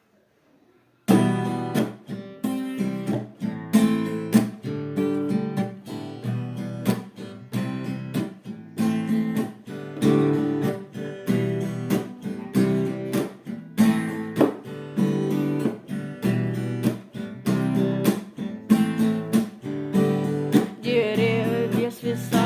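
Instrumental song intro on strummed guitar, starting suddenly about a second in after a moment of silence and keeping a steady rhythm of repeated chords. A higher melody with vibrato joins near the end.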